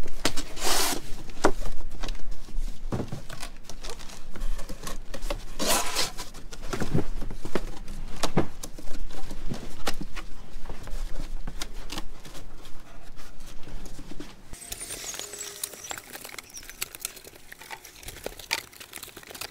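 Corrugated cardboard produce boxes being folded and assembled by hand: flaps creasing, scraping and knocking, with sharp slaps and rustles. The handling gets quieter over the last few seconds.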